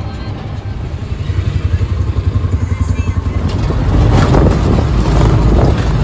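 Motorcycle tuk-tuk engine running under way, with a throbbing beat, getting louder from about a second in and again near the end, along with road and traffic noise.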